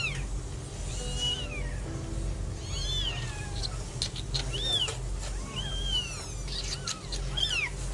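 Newborn kittens, just delivered by caesarean and being revived, mewing in short, thin, high-pitched cries that rise and fall, about one a second.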